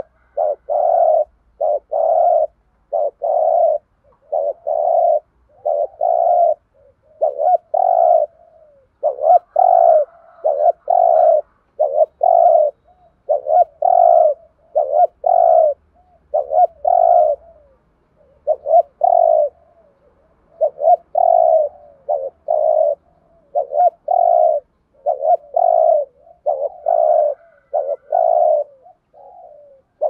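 Spotted dove giving its rapid 'thúc gù' cooing call: a steady run of short coos, about two a second, in quick groups with brief pauses, in the voice type keepers call 'giọng Thổ'.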